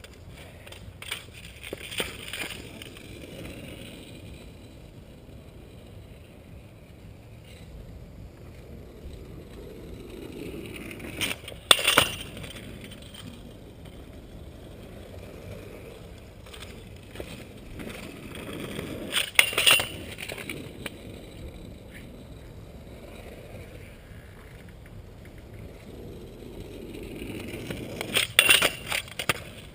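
Freestyle scooter wheels rolling on pavement, building three times into a burst of sharp clacks and metal scraping as the scooter pops up, grinds and lands, about eight seconds apart.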